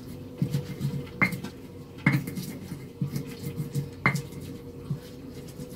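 Pestle pounding and grinding fresh chillies and spices into a coarse paste in a stone mortar (ulekan): a run of soft, irregular thuds, with sharper knocks a little over a second in, at about two seconds and at about four seconds. A faint steady hum runs underneath.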